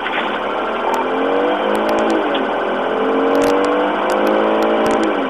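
Police car siren wailing, its pitch falling and then rising slowly over a few seconds, with the patrol car's engine and road noise beneath.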